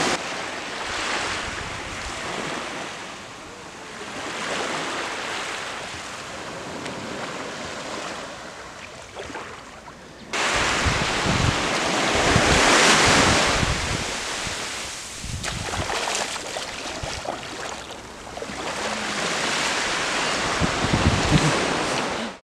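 Small surf washing up onto a sandy beach, the rush swelling and fading with each wave. About ten seconds in, it cuts to louder surf with wind gusting on the microphone. The sound stops abruptly near the end.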